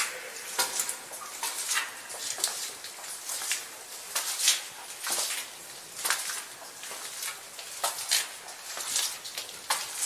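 Footsteps on small loose rocks on a cave floor, with reverberation: irregular gritty steps, about two to three a second.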